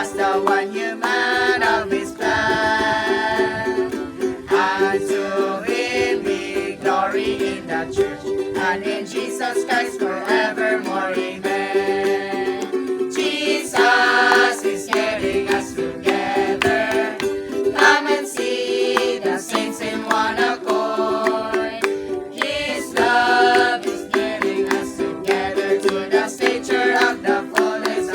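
Hymn music with plucked-string accompaniment: changing melody notes over a steady sustained lower tone.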